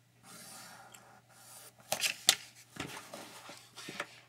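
Sheets of pattern paper and a plastic ruler being handled: a faint scraping on the paper, then a run of sharp taps and rustles from about two seconds in, the loudest a little after two seconds.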